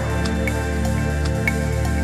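Background music: a calm new-age track of steady held chords with a light high note repeating about twice a second.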